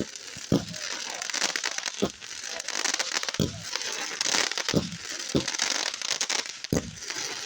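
Consumer fireworks going off: a dense, continuous crackle with about half a dozen louder sharp pops scattered through it.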